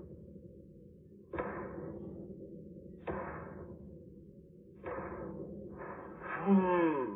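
Slowed-down cartoon dinosaur footsteps played through a TV speaker: three heavy stomps about a second and three-quarters apart, each hitting suddenly and dying away slowly. Near the end comes a drawn-out, loudest vocal sound that falls in pitch.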